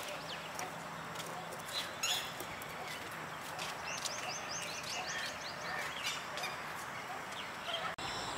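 Small birds chirping and calling, with a quick run of repeated high chirps about four seconds in, over a steady hiss of outdoor background noise.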